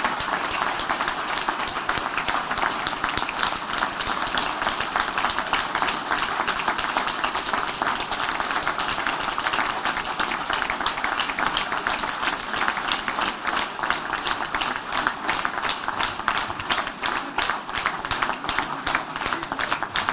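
A large crowd applauding at the close of a speech: dense, sustained clapping that doesn't let up, with individual claps standing out more sharply in the second half.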